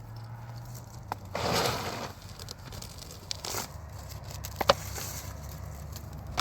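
Handling noises: scattered sharp clicks and knocks, with a brief scraping, crinkling noise about a second and a half in, over a steady low hum.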